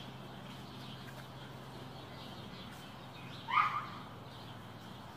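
Outdoor background with faint bird chirps over a steady low hum. About three and a half seconds in, a single short animal call rises above it.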